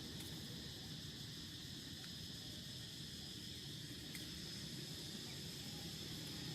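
Faint, steady high-pitched insect trilling that does not break, over a low, even rumbling noise.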